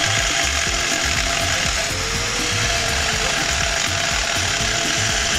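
Handheld angle grinder with a cutting disc running steadily as it cuts into the steel body of a motorcycle exhaust muffler, a continuous grinding screech.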